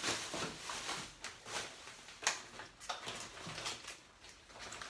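Light knocks and rustling as grocery packages are handled and set down on a wooden table.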